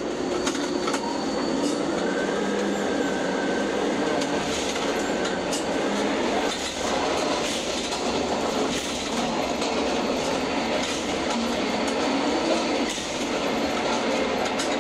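Ship-to-shore container crane's trolley and hoist machinery running as the spreader travels out over the ship and lowers into a hold cell, heard from the operator's cab: a steady mechanical rumble with a few sharp clicks and clunks along the way.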